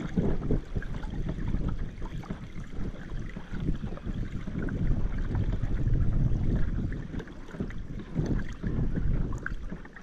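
Low, uneven rumble of wind on the microphone of a kayaker's body-worn camera, swelling and easing, with a few light knocks.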